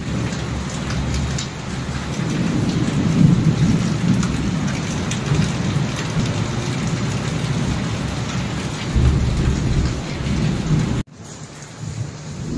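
Heavy rain pouring onto a tiled courtyard and plants, with a stream of roof runoff splashing on the tiles and a low rumble underneath. About eleven seconds in the sound cuts off abruptly and a quieter hiss follows, from oil heating in a pan on a gas stove.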